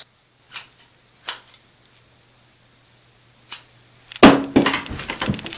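Scissors snipping shut three times, each a short sharp snip with silence between. About four seconds in comes a louder stretch of rustling and knocking.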